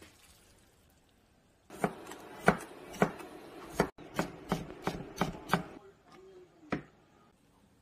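Kitchen knife slicing cucumber on a wooden cutting board: about ten sharp knife strikes, two to three a second, starting about two seconds in, then one last strike after a short pause.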